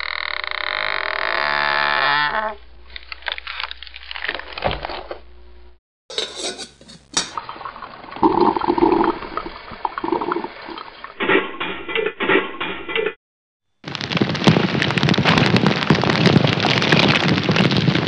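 A string of separate short sound clips with brief gaps between them, including a quick run of clicks about eleven seconds in; the last, starting about fourteen seconds in, is a wood campfire crackling densely.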